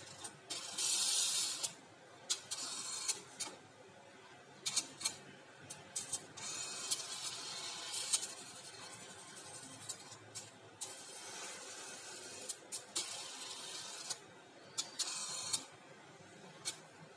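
HP printer running a print pass: bursts of high whirring from the moving mechanism, broken by many sharp clicks. The loudest burst comes about a second in.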